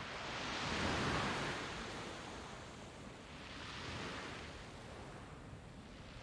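Soft rushing noise that swells and fades twice, about three seconds apart.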